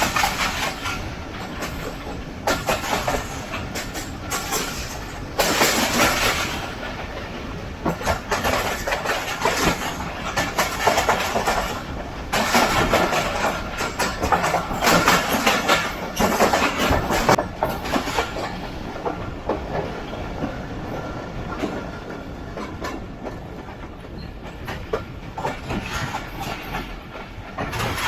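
Passenger train running at speed, heard from on board: its wheels clattering over rail joints, with louder spells of clatter about five seconds in and again in the middle before it settles a little.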